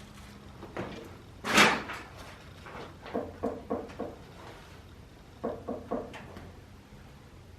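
Knocks and clanks on an old boiler as it is worked apart: one loud bang about a second and a half in, then two quick runs of knocks, four and then three, a few to the second.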